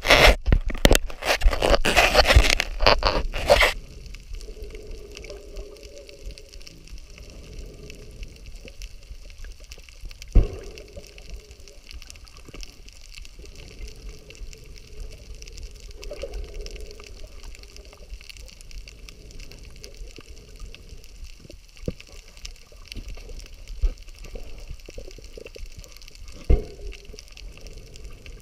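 Loud rushing and scraping of water and handling on a GoPro's waterproof housing for the first few seconds, then it drops suddenly to muffled underwater ambience heard through the housing. A few knocks sound against the housing, the sharpest about ten seconds in and near the end.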